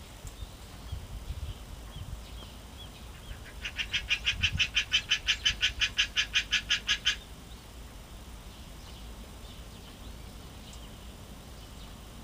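An animal's rapid trilled call, a run of about seven even pulses a second that lasts about three and a half seconds and then stops abruptly, among faint scattered chirps.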